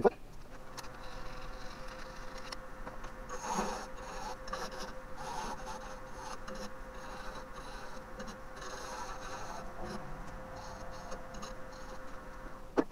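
Wood lathe running with a steady hum while a hand-held turning tool cuts the spinning green Japanese ornamental cherry end-grain bowl in repeated scraping strokes.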